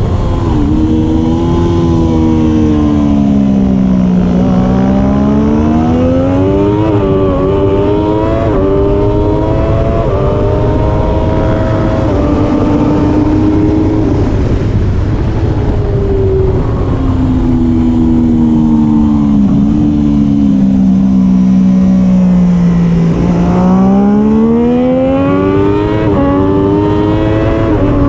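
Triumph Daytona 675R's three-cylinder racing engine at full race pace. The engine note falls over the first few seconds, climbs again with quick gear changes around seven to nine seconds in, sinks slowly through a long stretch, then climbs through the gears once more near the end, over a steady rushing noise.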